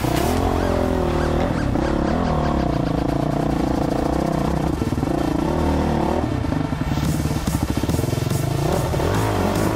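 Honda CRF450R single-cylinder four-stroke dirt bike engine revving up and down under throttle while riding off-road.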